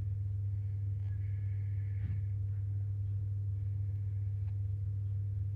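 A steady low hum throughout, with a few faint light clicks of knitting needles working in the round.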